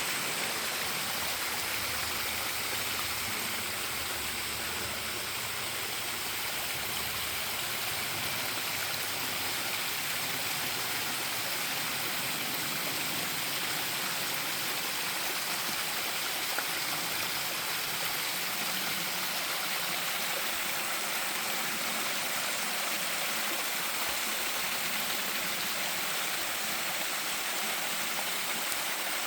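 A mountain stream flowing steadily, an even, unbroken hiss of running water.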